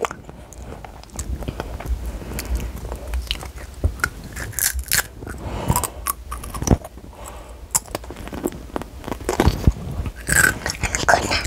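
A child chewing Sun Chips multigrain snack chips, with sharp crunches scattered irregularly throughout, close to a clip-on microphone.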